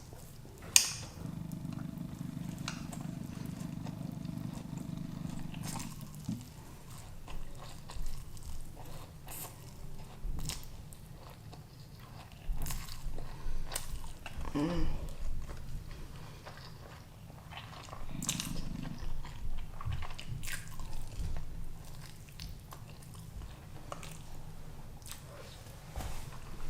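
Close-up chewing and eating of noodles: wet mouth sounds with scattered smacks and clicks. A low steady hum runs underneath, stops about six seconds in, and comes back briefly later.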